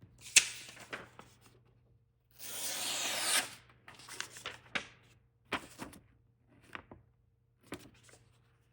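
Packaging being handled during a knife unboxing: a sharp click, then a rub or tear lasting about a second, followed by scattered shorter rustles and clicks.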